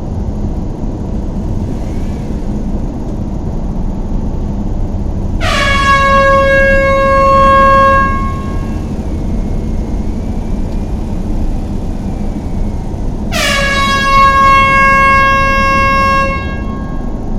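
A horn sounds two long, steady blasts, each about two and a half seconds, dipping slightly in pitch as each starts, over a steady low rumble.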